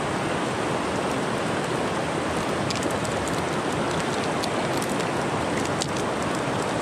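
Steady rush of a river flowing over stones, with a scatter of light clicks from about halfway as the cast net and pebbles are handled.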